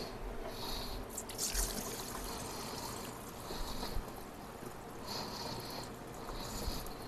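Fatty pork cooking liquid pouring off from a stainless steel pot into a metal colander, a light steady trickle, with a few faint clicks about a second in.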